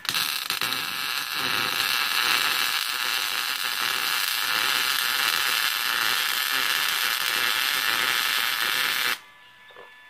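Electric welding arc on rebar, crackling and hissing steadily for about nine seconds, then cutting off suddenly.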